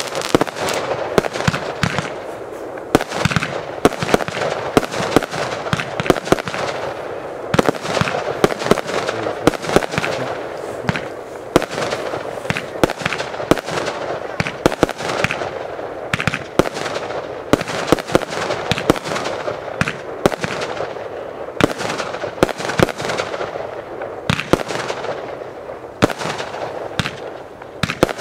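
Aerial fireworks bursting in rapid succession: a near-continuous run of sharp bangs, several a second, with crackling between them.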